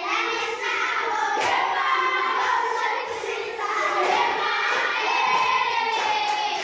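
A group of children singing together, with sharp thuds now and then in the rhythm.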